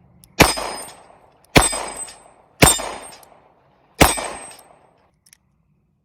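Smith & Wesson Model 60 stainless steel revolver fired four times at an uneven pace, about a second apart, each shot ringing and echoing off for about half a second. A faint click follows about a second after the last shot.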